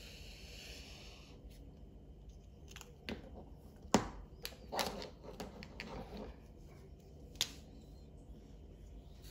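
A felt-tip marker rubbing across paper, a scratchy hiss that stops about a second and a half in. Then a few sharp clicks and knocks of things being handled, the loudest about four seconds in.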